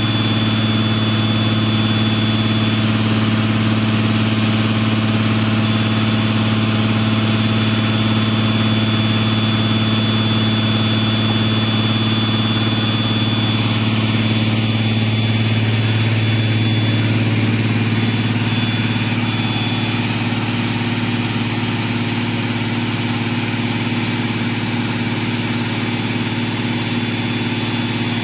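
Engine of an underground mining drill rig running steadily, a constant low hum with a thin high whine that comes and goes.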